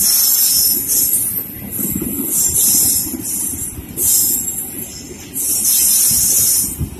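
Passenger coaches of a train rolling past close by: a low rumble from the wheels on the rails, broken by repeated loud bursts of high hiss, each about a second long.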